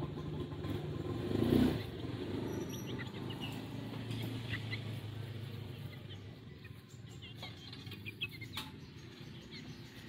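A steady low motor hum that swells briefly about a second and a half in, with short high bird chirps and a few sharp clicks scattered over it.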